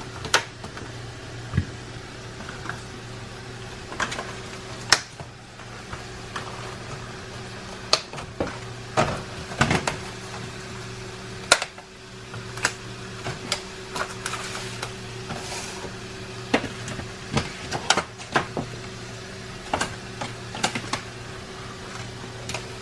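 Kitchen work on fruit for a smoothie: scattered light clicks and knocks, a couple every second or so at irregular times, over a steady low hum.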